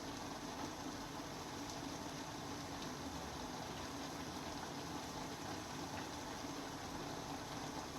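Steady hiss of water, unchanging throughout, with a few faint ticks.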